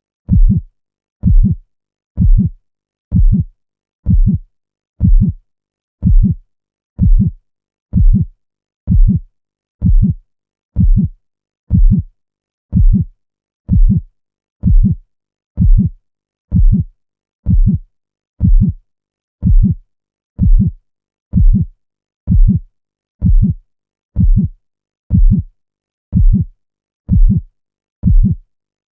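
Loud heartbeat sound effect: a steady lub-dub rhythm of paired dull thumps, about one beat a second.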